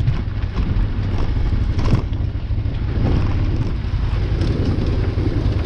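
Adventure motorcycle riding on a gravel road, heard from a camera on the bike: a low engine drone mixed with wind noise on the microphone, with a sharp knock about two seconds in.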